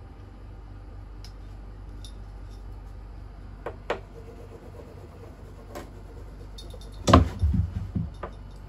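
A British Shorthair cat jumping up onto a carpet-covered wall shelf, with a cluster of heavy thumps about seven seconds in. A few light taps come earlier.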